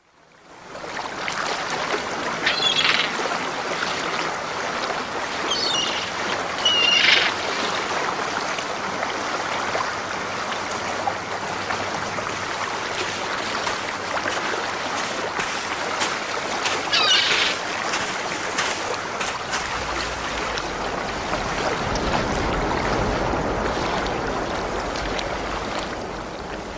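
Sea waves washing on a beach in a steady rush, swelling deeper in the last few seconds, with seagulls calling a few times. The sound fades in at the start and fades out at the end.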